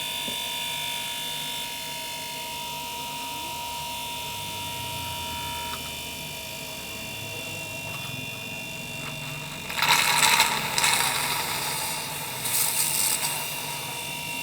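Refrigerator compressor running with a steady hum while it sucks oil in through a hose on its suction pipe. About ten seconds in, and again near the end, come loud bursts of hissing.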